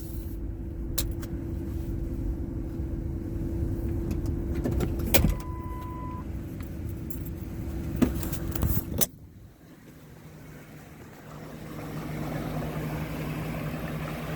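Car engine running, heard from inside the vehicle, with several clicks and a short steady beep partway through; the engine sound cuts off suddenly about nine seconds in. Near the end a steady rushing noise with a low hum builds.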